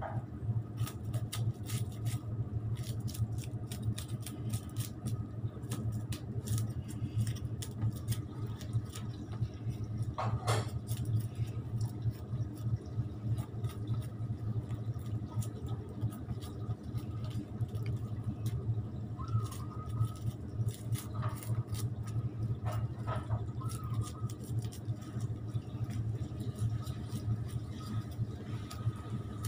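A knife scraping scales off whole fish, heard as a long run of quick, irregular scratchy clicks. A steady low hum runs beneath it and is louder than the scraping.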